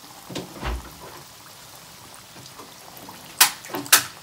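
Makrout pastries frying in hot oil in a pan, a steady sizzle broken by a few sharp pops. The two loudest pops come near the end, as a hand puts another piece into the oil.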